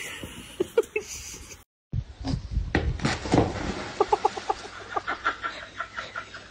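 Water splashing in a backyard swimming pool as an animal swims, with a quick series of short, high calls over it.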